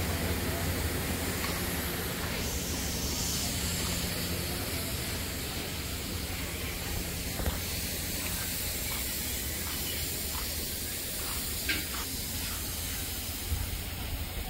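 High-pressure spray gun hissing steadily as a tractor is washed down, over a steady low hum.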